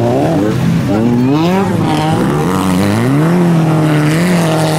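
Autocross race car engines revving hard under the throttle. The pitch climbs about a second in, drops near two seconds, then climbs again and holds high toward the end.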